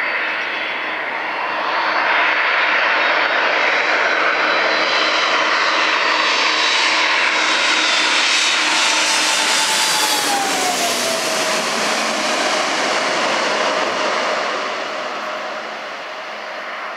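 Airbus A300-600ST Beluga's two General Electric CF6 turbofan engines on final approach, passing low overhead. The engine noise swells about two seconds in, peaks near ten seconds with a whining tone that drops in pitch as the jet goes over, then fades as it moves away toward the runway.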